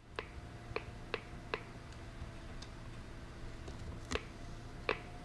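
Sharp metallic clicks of surgical instruments, a needle holder and forceps, as they handle a suture: four quick clicks in the first second and a half, then two more near the end, over a faint steady hum.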